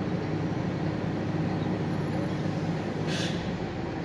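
City bus engine running steadily, heard from inside the cabin as a low hum, with a short hiss about three seconds in.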